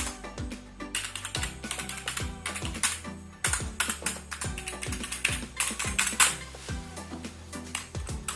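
Typing on a Zebronics Zeb Fighter gaming keyboard: quick runs of key clicks with short pauses between them, over background music.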